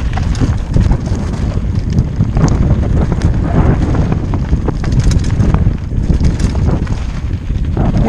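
Mountain bike descending a dry, rocky dirt trail: tyres rumbling and crunching over dirt and loose stones, the bike rattling over bumps, with wind buffeting the helmet-mounted microphone.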